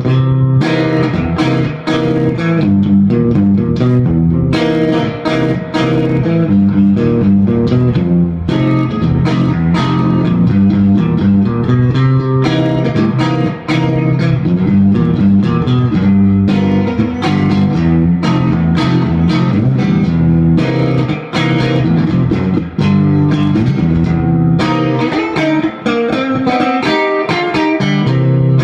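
Electric guitar played through a 1964 Fender Vibroverb clone 6L6 tube amp: a continuous blues-rock run of picked single notes and phrases, with only brief gaps between phrases.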